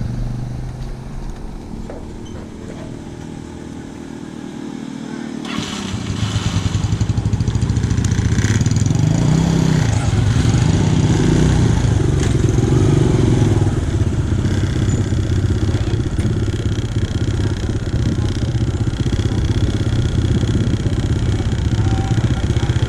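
Kawasaki KLX150 single-cylinder dirt bike engine running at a low, even pitch, then getting louder about five seconds in as the bike pulls away. The engine pitch rises and falls a few times as it picks up speed, then holds steady while riding.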